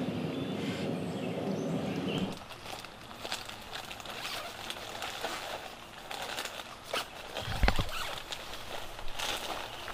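A steady low hum that cuts off about two seconds in. Then a quiet woodland background with scattered rustles and clicks, and footsteps on leaf-littered forest ground, heavier near the end.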